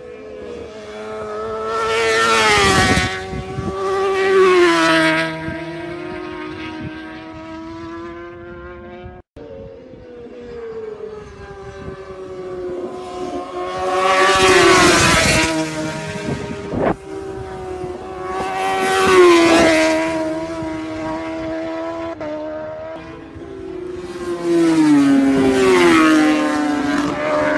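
Racing motorcycles going past at full speed one after another, several separate passes. Each engine note swells to a loud scream and drops in pitch as the bike goes by, then fades.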